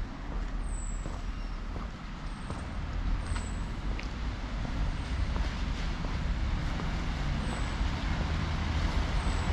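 City street traffic: a motor vehicle's low engine rumble and tyre noise growing louder as it approaches.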